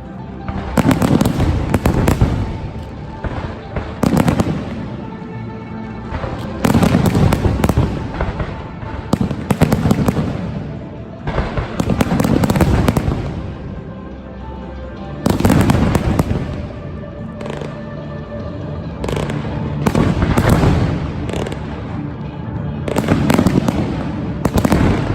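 New Year's Eve fireworks display going off in loud crackling volleys of rapid bursts, one every two to three seconds, with show music playing underneath.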